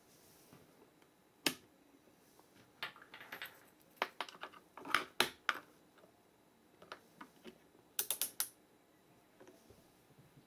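Sharp mechanical clicks and knocks in irregular groups, with a quick run of about four clicks about eight seconds in.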